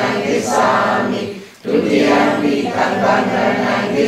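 Several voices chanting together in unison, in long held tones, with a short break for breath about a second and a half in. This is typical of a Buddhist congregation's devotional recitation.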